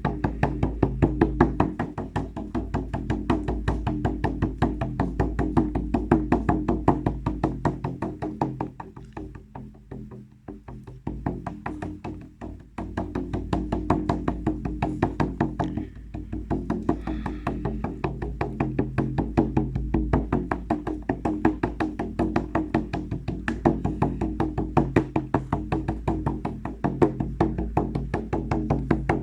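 Music with a fast, steady percussive beat of wood-block-like strikes over a low sustained drone. It drops quieter for a few seconds around the middle, then comes back up.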